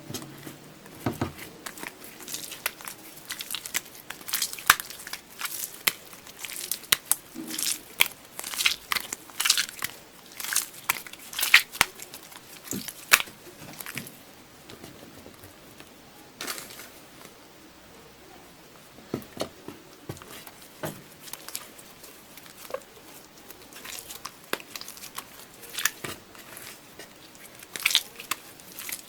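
Slime being squeezed and pressed by hand, giving a stream of crackling, crunchy clicks. There is a quieter stretch about halfway through.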